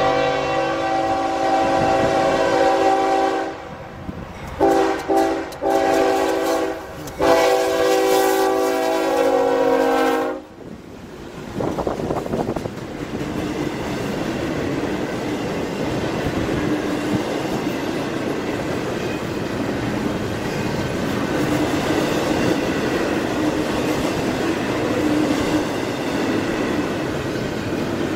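CSX freight locomotive's horn sounded as it approaches, in several blasts, the last long one ending about ten seconds in. Then the double-stack container cars roll past with a steady rumble and clatter of wheels on the rails.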